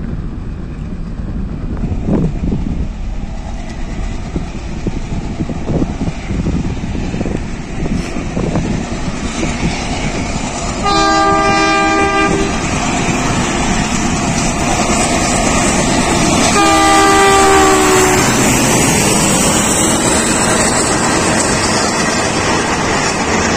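WDM3A Alco diesel locomotive approaching and passing with its passenger train: engine rumble growing louder, two blasts of its horn about halfway through and again some five seconds later, then the coaches rolling past with wheel clatter.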